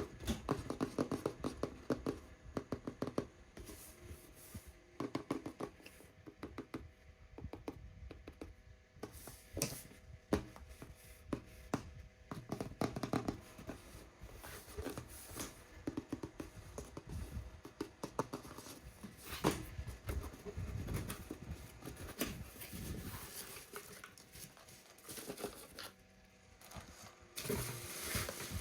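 Irregular handling noises from unboxing toys: scratching, light clicks and soft knocks from plastic and cardboard packaging being worked by hand.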